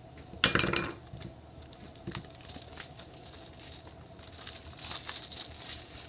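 Clear plastic shrink-wrap being torn and peeled off a Blu-ray case. There is a sharp tear about half a second in, then crinkling as the wrap is worked off.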